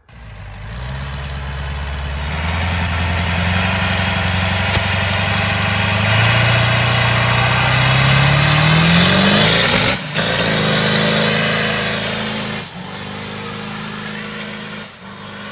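Ford pickup truck engine revving hard during a burnout, its pitch climbing steadily for about nine seconds over the hiss of spinning tires. Around ten seconds in it breaks off for a moment, then runs on at a steadier, quieter pitch.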